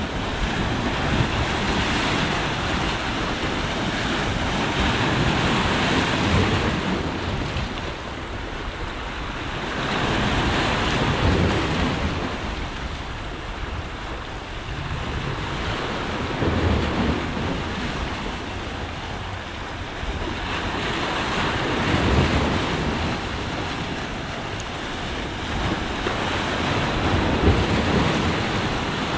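Sea waves surging and washing ashore, swelling and easing about every five seconds, with wind buffeting the microphone.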